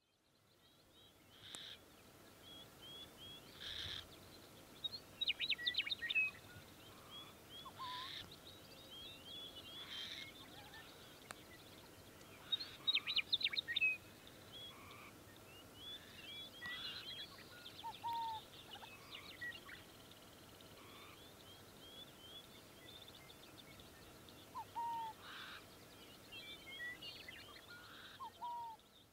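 Wild birds calling in open grassland: many short chirps and whistled calls, with two bursts of rapid trilling and a few lower calls now and then, over a faint steady background. The sound fades in at the start.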